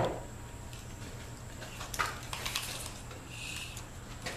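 A sharp knock at the start, then metallic clicks and rattling from a steel tape measure as its blade is pulled out and laid along a length of lumber.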